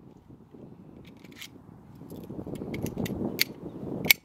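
Baikal MP-654K Makarov CO2 air pistol firing a BB: one sharp crack about four seconds in, with several fainter metallic clicks and ticks before it. Wind rumble on the microphone underneath.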